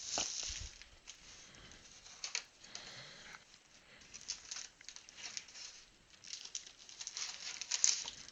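Crinkling plastic wrap and rustling cardboard as a sealed hobby box of football trading cards is unwrapped and opened, with irregular small clicks and tearing sounds throughout.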